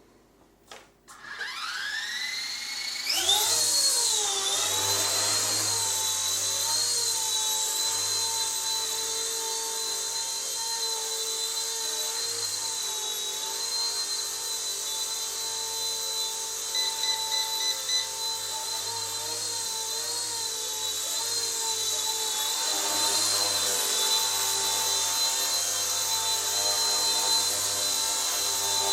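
Small electric RC helicopter (RC Era C138 Bell 206 scale model) taking off again: a couple of clicks, then the rotor motors spin up with a rising whine about a second in, settling into a steady high-pitched whine as it hovers, with slight wavers as it is steered and trimmed.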